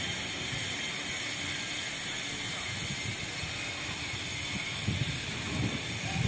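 Steady outdoor background hiss, with a few short low rumbles near the end.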